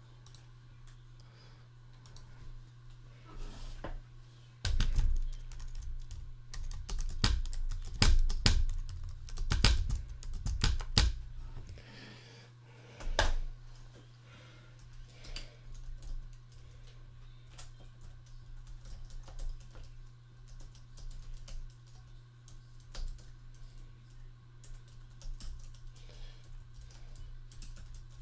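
Typing on a computer keyboard: dense runs of key clicks and taps from about five to eleven seconds in, then sparser, fainter clicks. A steady low hum runs underneath.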